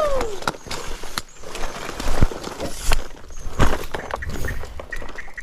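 Fishing gear handled while casting a lure: irregular knocks and clicks over a rustling hiss, with a few heavier low thumps in the middle.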